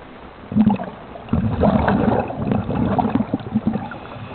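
A scuba diver exhaling through the regulator underwater: bubbles rushing out with a crackling gurgle, a short puff about half a second in, then a longer exhalation lasting about two and a half seconds.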